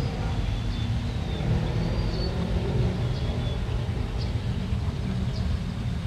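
Steady low outdoor rumble with a few faint, short high chirps over it.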